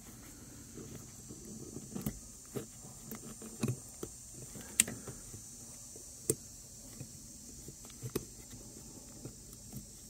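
Scattered light clicks and taps at irregular intervals as an accelerator cable end is worked over the top of the accelerator pedal arm by a gloved hand.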